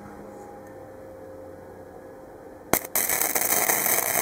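Harbor Freight Easy-Flux 125 flux-core wire-feed welder laying a tack weld on a stainless V-band clamp and mild steel pipe. A brief blip as the arc is struck about two and a half seconds in, then the loud, even crackle of the arc for about a second and a half.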